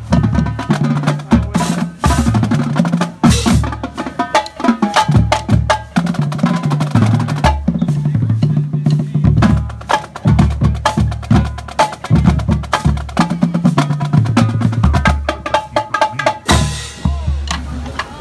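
High school marching drumline playing a fast cadence: snare drums rolling and rattling over tuned marching bass drums that play split notes stepping between different pitches.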